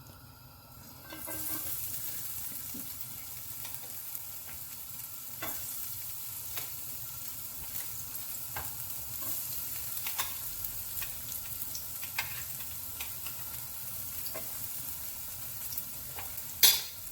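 Chopped ginger and garlic sizzling in hot oil in a pan, the hiss starting about a second in. A utensil stirring in the pan makes scattered clicks, with one sharper knock near the end.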